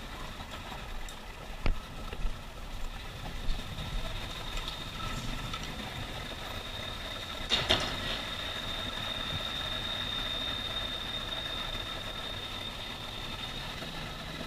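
Vehicle engine idling steadily, with a few sharp clicks and knocks; after a louder knock about seven and a half seconds in, a steady high whine sets in and holds.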